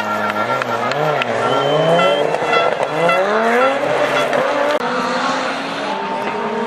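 Rally car engine revving hard as it accelerates away, its pitch climbing, dropping at a gear change and climbing again.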